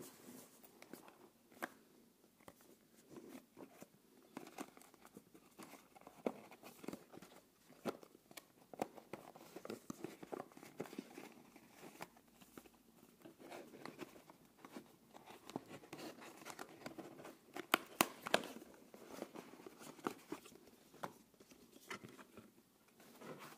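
Hands working open a tight black cardboard packet and sliding out paper manuals: rustling and scraping of card and paper with many small clicks and taps, and two sharper snaps about three-quarters of the way through.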